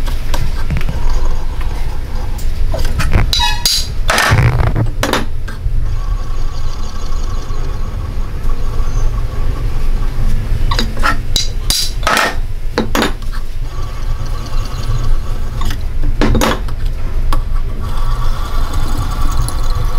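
Irregular metal clinks and knocks from a steel crankshaft's flywheels being turned on centres and tapped with a flat metal bar to true them, in a few clusters, over a steady low hum.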